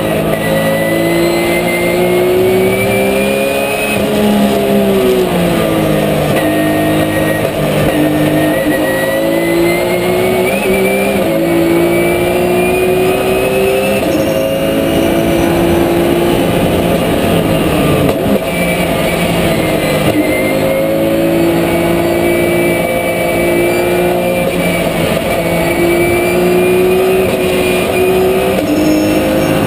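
Cabin onboard sound of a Porsche 997 GT3 Cup's naturally aspirated flat-six engine under racing load. Its pitch climbs through the revs and drops back at each gear change, with a longer fall and rise about four to six seconds in, where it comes off and back on the power.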